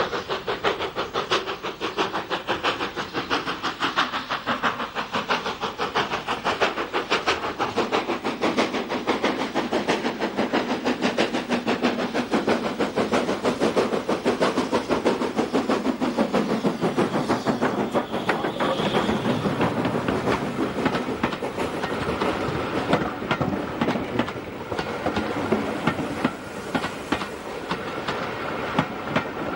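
Steam locomotive approaching with a rapid, steady chuff of exhaust beats as it hauls its train past. About halfway through, the sound shifts to the clickety-clack of the coaches' wheels over the rail joints as the carriages roll by.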